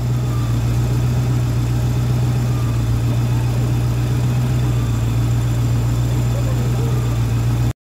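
Ford 302 V8 idling steadily, a smooth, even hum, with the audio cutting out for an instant at the very end. The owner suspects a vacuum leak at the intake manifold on this engine, heard as a whistle and a rising and falling idle.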